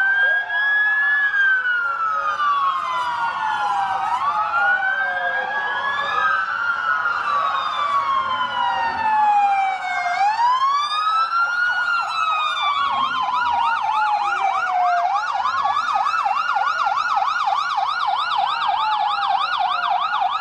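Several emergency-vehicle sirens sounding at once, their slow rising-and-falling wails overlapping. About twelve seconds in, one switches to a fast yelp while the others keep wailing.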